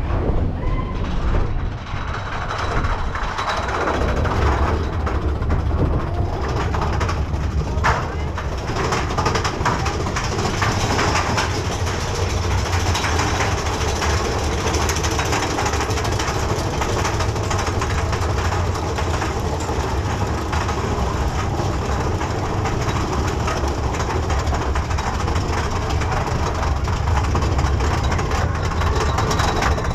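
Big Thunder Mountain Railroad mine-train roller coaster running on its track and climbing a lift hill: a steady rumble with fast, dense clicking from about eight seconds in.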